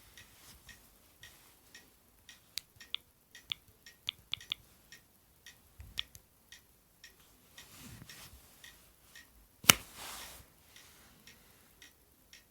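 Faint, irregular clicks and taps of a mobile phone being handled, with one sharper, louder click a little under ten seconds in.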